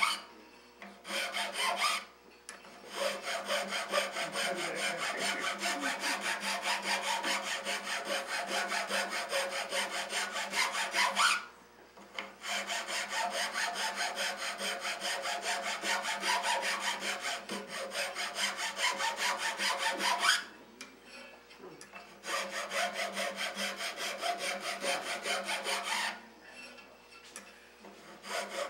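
Round chainsaw file rasping back and forth in the spiral grooves of a wooden lathe spindle, smoothing out the marks of the coarser file. Rapid, even strokes come in three long spells broken by short pauses.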